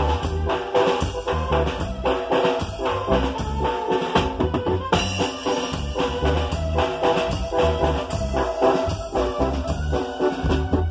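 Live band playing an instrumental: electronic keyboard, drum kit and electric bass, with a steady beat.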